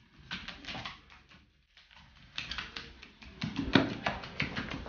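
Footsteps on a wooden parquet floor: a white domestic duck and a person in soft shoes walking, heard as a run of light taps and pats. There is a short quiet pause in the first half and a louder thump a little before the end.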